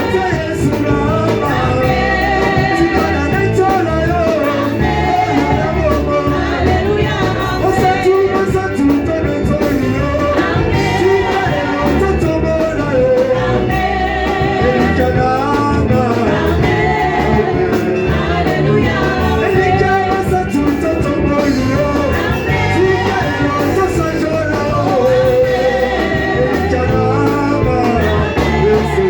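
Worship music with singing over a steady band accompaniment.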